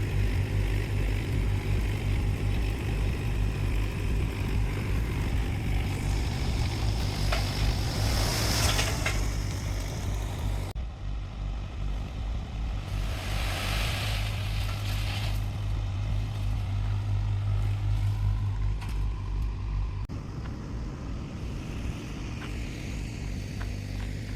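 Small excavator's diesel engine running steadily with an even low throb, with two louder rushing noises about eight and fourteen seconds in.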